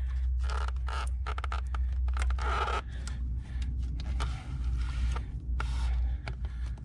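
Hands moving a wiring harness and rubber hoses around in an engine bay: scattered clicks and rubbing, scraping rustles over a steady low hum.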